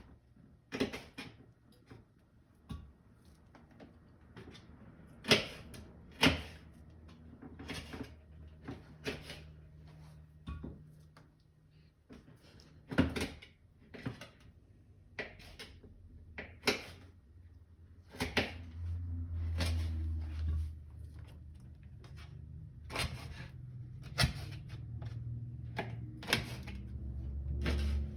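Knife chopping the nails off chicken feet on a cutting board: single sharp knocks every second or two. A low hum comes in twice in the second half.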